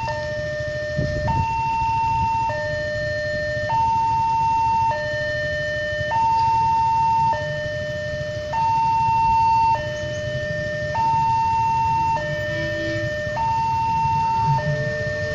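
Railway level-crossing warning alarm sounding a two-tone signal, switching back and forth between a lower and a higher tone about every 1.2 seconds, over a low rumble.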